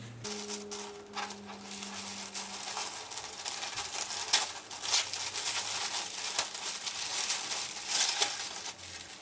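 Packaging being opened and handled: continuous rustling and crinkling, with many sharp crackles throughout.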